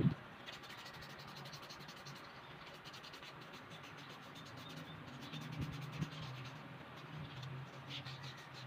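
Fast, rhythmic scraping of sandpaper on the steel shaft of an electric fan motor's rotor, rubbing off rust so the tight shaft can be freed from its bushing. A knock opens it, and a faint low hum runs underneath.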